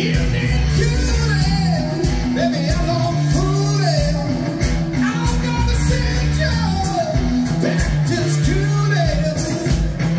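Live rock band playing a groovy number: electric guitars, bass and drum kit keeping a steady beat, with a lead vocal gliding over the top.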